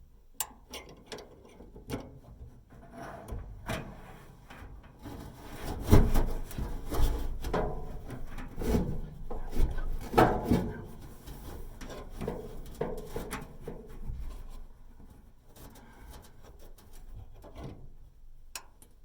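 Scraping, rubbing and irregular knocks and clicks of hands working parts inside a Samsung dryer's cabinet while refitting the idler pulley and its tension spring. The loudest knocks come about six and ten seconds in.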